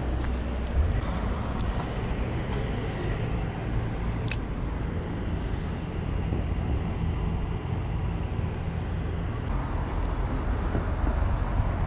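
Steady low rumble of urban outdoor background noise, with a few sharp clicks, the clearest about four seconds in.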